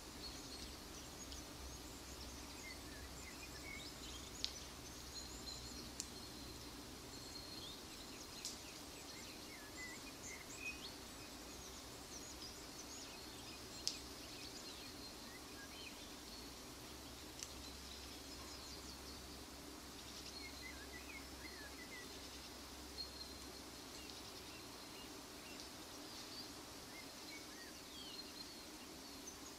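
Faint autumn countryside ambience: scattered small bird chirps over a steady high insect-like hiss and a low hum, with a handful of sharp clicks a few seconds apart.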